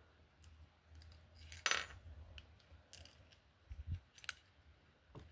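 Lock pick scraping and clicking against the pin stack inside a Master Lock 930's five-pin keyway while tension is held. It gives a short metallic rasp about a second and a half in and a few light clicks later, with a low bump near four seconds.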